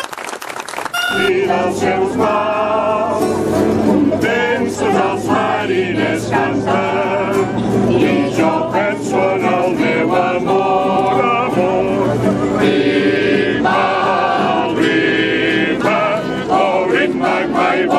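Group of amateur singers, men and women, singing a song together in chorus to acoustic guitar accompaniment, starting about a second in.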